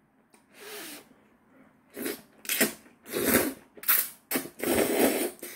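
A person slurping kalguksu noodles: about five loud, quick sucking slurps from about two seconds in, the last one the longest.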